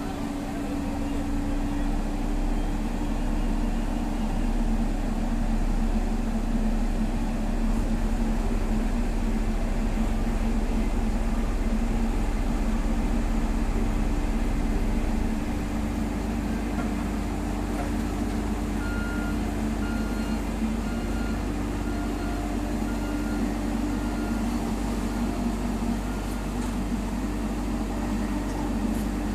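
Vibratory road roller running steadily, its diesel engine droning evenly over a deep, constant low rumble, with only a slight dip in loudness about halfway through. A faint beep repeats about once a second for several seconds past the middle.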